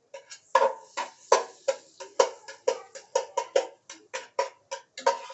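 A metal cooking utensil clanking repeatedly against a pan: about four sharp, ringing strikes a second, uneven in spacing and strength.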